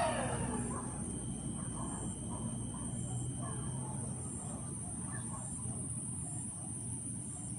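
The end of a loud, unidentified wailing scream, like a woman screaming, that slides down in pitch and dies away within the first second. After it there is steady outdoor night ambience with a high hiss and a few faint, distant calls.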